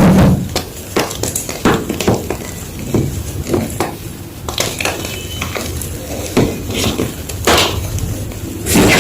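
Fresh gym chalk crunching and crumbling in a run of irregular dry cracks and crunches, the loudest at the start, about two-thirds of the way through and at the end.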